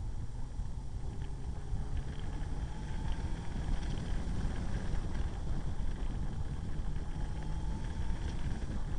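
Motorcycle riding at speed: a steady rumble of wind buffeting the microphone over the engine drone, whose pitch rises and falls gently.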